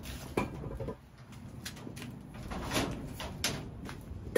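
A run of knocks, rattles and scrapes as gear and tools are handled and moved about in a cluttered storeroom, the sharpest about half a second in and right at the end.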